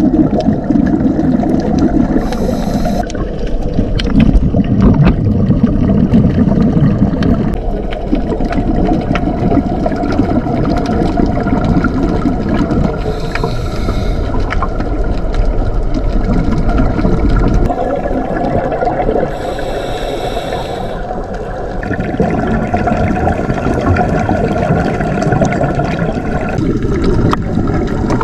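Underwater rumble and gurgling of water against a diving camera, with three short hissing bursts spread through it, typical of a scuba diver's regulator breathing.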